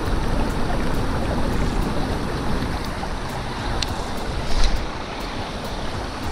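Steady wind rush on the microphone, with a short whirring burst about four and a half seconds in as a baitcasting rod is cast.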